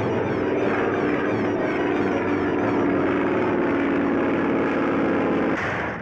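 Propeller airplane engine drone in a cartoon soundtrack, loud and steady with a slight downward drift in pitch, cutting off abruptly near the end.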